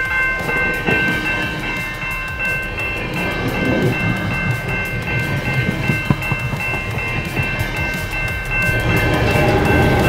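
Bilevel commuter train passing close by a level crossing: continuous rumble of wheels on rail with irregular clatter, over the crossing bells ringing steadily. The rumble grows louder near the end as the locomotive comes by.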